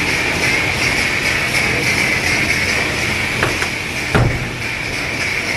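Steady hissing noise of a self-serve car wash bay, with two short knocks, the louder one about four seconds in.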